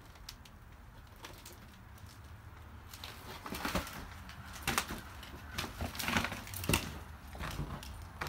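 Irregular footsteps on old, debris-strewn wooden floorboards, starting about three seconds in.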